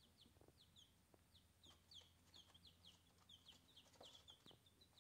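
Young Ameraucana and olive egger chicks peeping faintly: short, high, falling chirps, several a second.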